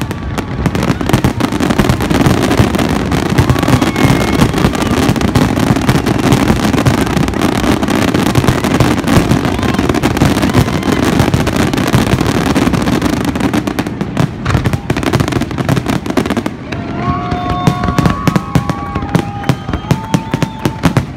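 Fireworks display in full barrage: a rapid, unbroken run of aerial shell bursts and crackle that merges into a dense rumble. About three-quarters of the way through, the bursts thin out into separate bangs, and a few held tones rise over them.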